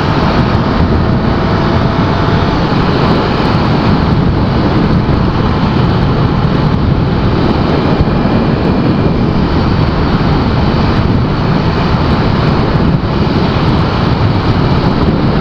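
Honda XR250 Tornado's single-cylinder four-stroke engine running at a steady road speed, nearly buried under a steady rush of wind over the action camera's microphone.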